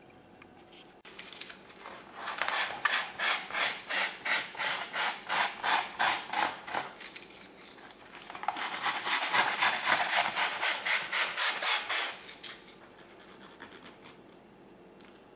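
Rapid back-and-forth rubbing strokes, like sanding or filing by hand, about four a second, in two runs separated by a short pause; the second run is faster and denser.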